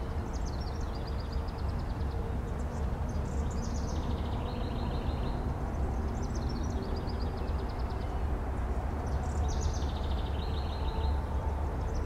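A songbird repeatedly sings a short, high, rapid trill that steps down from a higher series of notes to a lower trill, several times over, against a steady low rumble of background noise.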